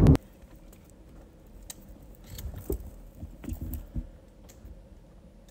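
A brief burst of car-cabin noise cuts off abruptly, then quiet with a cluster of faint short clicks and rustles about two to four seconds in.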